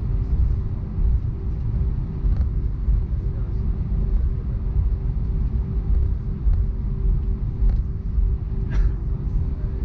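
Steady low rumble of an Airbus A319 with IAE V2500 engines running, heard from inside the cabin, with a constant hum over it and a faint click near the end.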